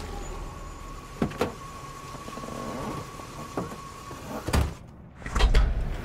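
Car doors of a stopped taxi sedan clicking open, then two doors shut with heavy thumps about four and a half and five and a half seconds in, the second the louder, over a low rumble and a steady thin high tone that stops just before the first thump.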